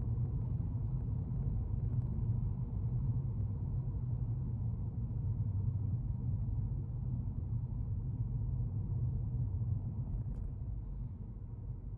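Steady low rumble of a car driving, engine and road noise heard from inside the car, easing slightly near the end.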